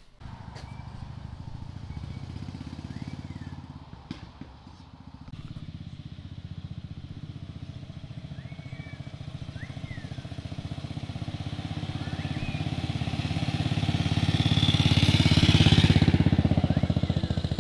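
1965 Velocette MSS's 500 cc single-cylinder four-stroke engine running as the motorcycle is ridden past, growing steadily louder as it approaches and loudest just before the end. Faint bird chirps a few times.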